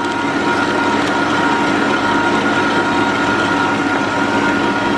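Electric stand mixer running at a steady speed, its wire whisk beating cake batter in a stainless steel bowl: an even motor hum with a steady whine.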